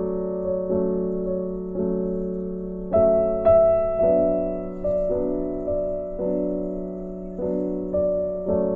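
Background piano music: slow notes and chords, each struck and left to fade, about one a second.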